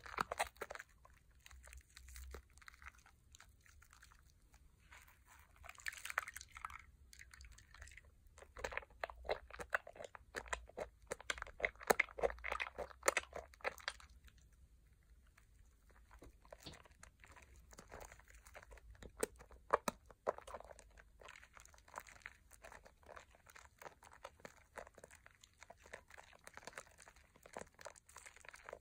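Hands squeezing and kneading thick Pears soap lather over a bowl of soapy water: wet squishing with a fine crackle of popping bubbles, coming in bouts, with a short lull about halfway through.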